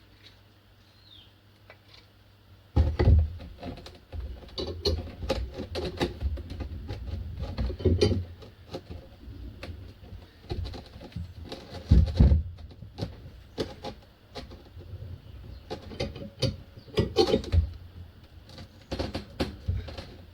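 Irregular metal clicks, knocks and heavy thumps of a G-clamp being worked against a brake caliper, trying to wind back a piston that will not move: the caliper piston is seized. The first few seconds are quiet before the knocking starts.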